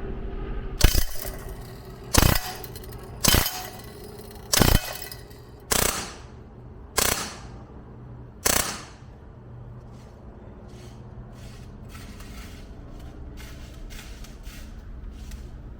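CO2 BB gun firing seven sharp shots, about one every second or so, each with a short ring after it. In the last few seconds only a string of much fainter quick ticks follows.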